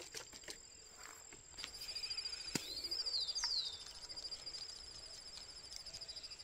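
Faint outdoor creekside ambience: an insect's rapid high trill setting in about a second and a half in over a steady high whine, and a bird giving two quick downward-sliding whistles about three seconds in. A few light clicks are scattered through.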